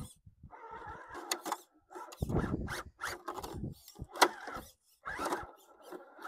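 Scale RC rock crawler climbing over rocks in short throttle bursts: its electric motor and gears whir in spurts while the tires scrabble and the chassis knocks against the rock, with a sharp knock about four seconds in.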